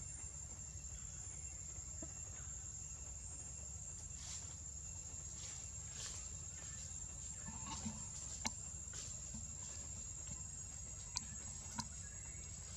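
Steady high-pitched insect drone from the surrounding forest, over a low rumble, with a few faint sharp clicks in the second half.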